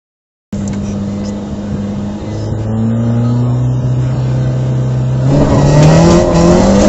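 Peugeot 106 rally car engine heard from inside the cabin, cutting in about half a second in and running at fairly steady revs, then from about five seconds in getting louder and revving up as the car accelerates.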